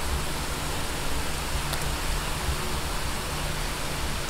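Kikiam sticks deep-frying in a pan of hot oil: a steady, even sizzle.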